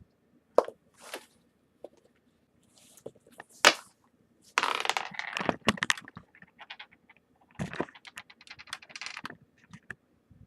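A die rolled on a tabletop: sharp clicks and clattering rattles, with a longer stretch of scraping and rattling about halfway through.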